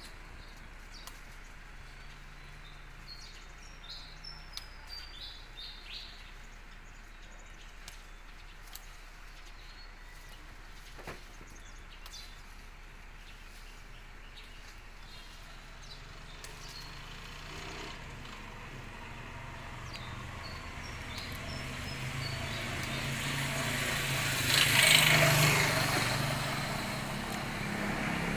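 Birds chirp a few seconds in, a short run of notes stepping down in pitch. From about two-thirds of the way through, a motor vehicle approaches with a low engine hum and rising road noise, loudest near the end as it passes.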